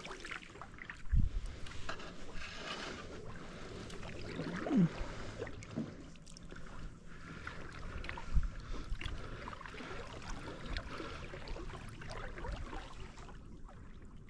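Kayak paddling: the paddle dipping and water sloshing along the hull, with a couple of dull knocks, about a second in and again later.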